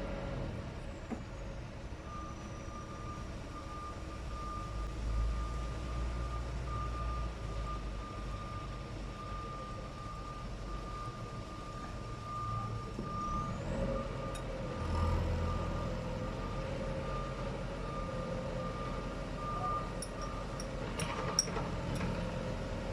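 A heavy construction vehicle's reversing alarm beeping over and over at a steady pitch, over the low rumble of a diesel engine working on earthmoving. The beeping stops a few seconds before the end, and a few sharp clicks follow.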